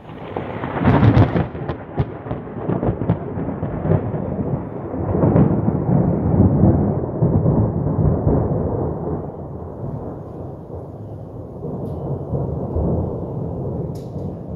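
Thunder: a sharp crackling peal about a second in, then a long rolling rumble that swells again midway and once more near the end.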